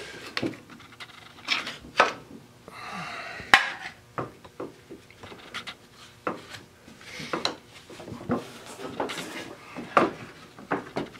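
Irregular metal clinks, knocks and scraping as the Polaris Magnum 500's front drive shaft is worked by hand onto its splined coupling.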